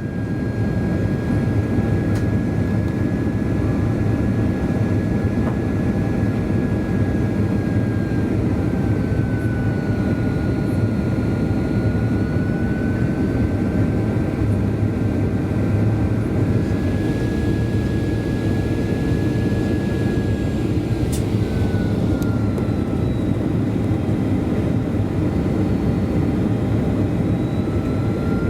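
Cabin noise of a Boeing 737-400 in flight: a steady rush of engine and airflow noise from its CFM56 turbofans. A thin engine whine over it drops and rises in pitch a few times.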